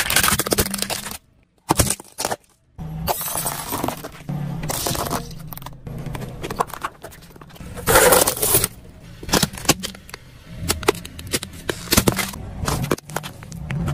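A car tyre rolling over and crushing plastic objects on asphalt: toy cars and pudding cups breaking with a series of sharp cracks, crunches and pops, over the car's low engine hum. A few short silent gaps break up the sounds.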